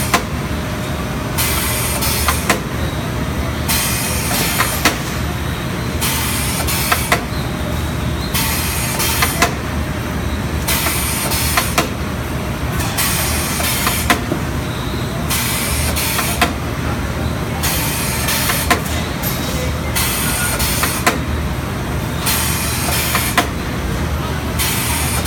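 A STEEN ST 828 drumstick deboning machine running with a steady low hum. A short hiss and a sharp click repeat about every one and a half seconds as it cycles.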